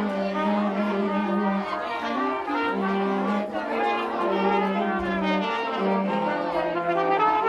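Band room full of players warming up their instruments at once, brass prominent: many overlapping held notes and runs at different pitches, out of time with each other, with one low note held again and again.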